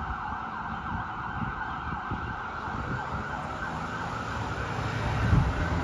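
Siren of a 1992 Seagrave fire engine responding, sounding continuously with rapidly sweeping pitch. A low rumble grows louder near the end.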